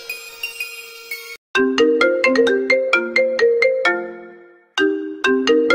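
Mobile phone ringtone: a quick marimba-like melody of short struck notes, played twice with a brief gap between. It starts about one and a half seconds in, after the fading last note of an earlier music track cuts off.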